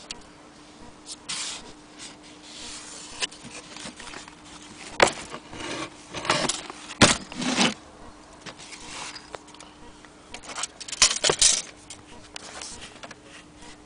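Irregular metallic clicks, rattles and short scrapes from an aluminum Blickensderfer Featherweight typewriter being handled, busiest around the middle and again near the end, over a faint steady hum.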